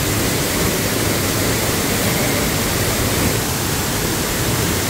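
Waterfall pouring into a plunge pool: a steady rush of falling water.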